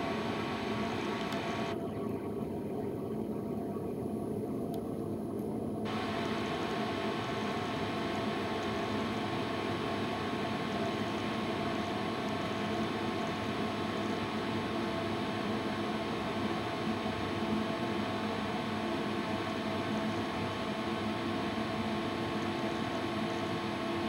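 Danube DD16 electronic tumble dryer running, its drum turning a load of laundry. A steady machine hum and whir with no knocks or breaks.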